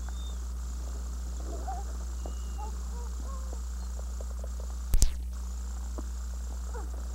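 Steady low electrical hum on the camcorder's audio track, with a few faint short pitched sounds over it and one sharp click about five seconds in.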